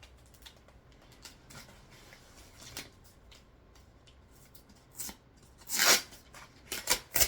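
Hands unwrapping packing material: faint rustling and light clicks, then a few short rasping rips of tape and wrapping from about five seconds in, the loudest just before six seconds and two more near the end.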